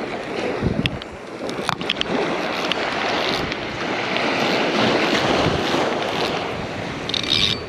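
Ocean surf washing in, with gusty wind buffeting the microphone; the rush swells and eases over a few seconds. A few sharp clicks sound over it.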